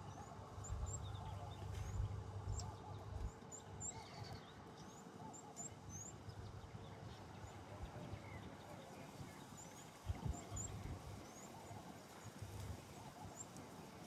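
Birds chirping in many short, high calls, over a faint low rumble and a few knocks.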